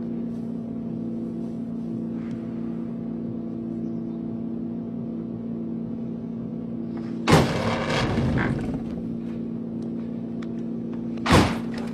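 A car engine idling steadily, with two loud kicks slamming into the metal body of a red Ferrari 250 GT California. The first comes about seven seconds in and rings on for a moment; the second comes near the end.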